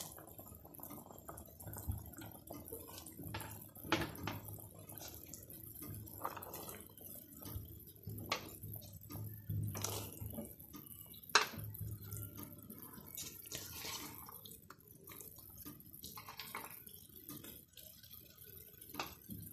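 Chicken broth with macaroni boiling in a pot: quiet bubbling with many small pops and drips. There are a few louder plops and splashes as shredded cabbage and chopped vegetables are dropped in.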